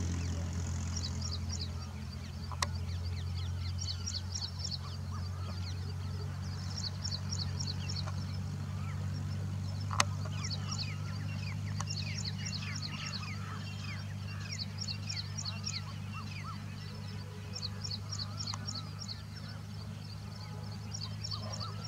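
Small birds chirping in quick runs of short high notes over a steady low hum. There are two sharp clicks, one about two and a half seconds in and a louder one about ten seconds in.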